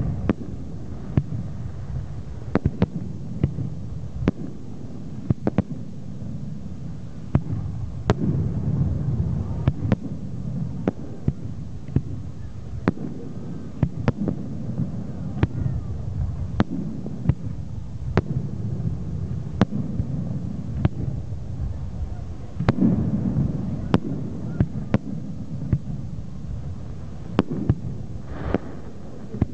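New Year fireworks going off: dozens of sharp bangs and pops at an irregular pace over a continuous low rumble of further bursts.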